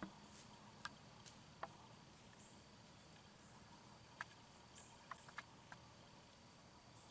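Near silence in the woods: faint, steady high insect chirring with a few tiny scattered clicks, about six of them, mostly in the second half.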